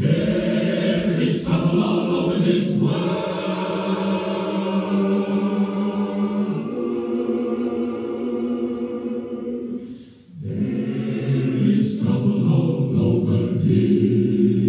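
Recorded choir singing a slow spiritual in long, sustained chords, with a brief break between phrases about ten seconds in.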